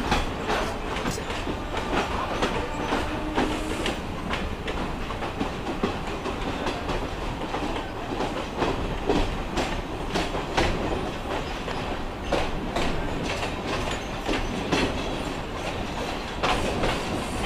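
Mumbai suburban local electric train running, with a steady rumble and an irregular clatter of wheels over rail joints and points.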